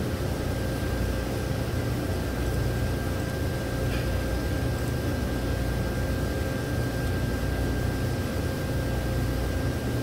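Steady low hum of the 1997 Chevrolet pickup's Vortec 5.7 V8 idling, with a faint constant whine above it.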